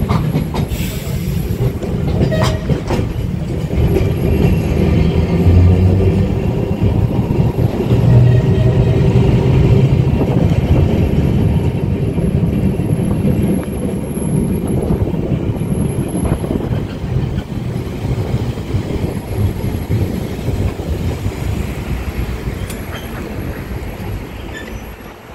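1934 English Electric boat tram running along street track, heard from aboard the open-sided car: a loud, steady rumble of wheels on rail and running gear with a few faint clicks, growing quieter near the end.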